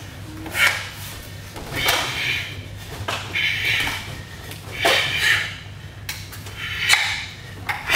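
Wooden nunchaku swung fast through the air in a kata, about five sharp whooshes a second or so apart, mixed with the performer's forceful exhalations, over a low steady hum.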